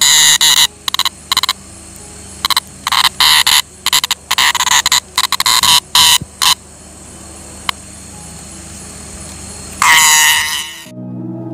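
Greengrocer cicada calling: a loud, high buzz that comes in short stuttering bursts, then one longer burst about ten seconds in.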